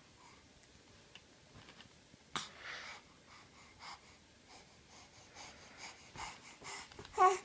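Breathy, wheezy vocal sounds: a sharp airy hiss about two and a half seconds in, a few short breathy puffs after it, and a short high-pitched voiced sound near the end.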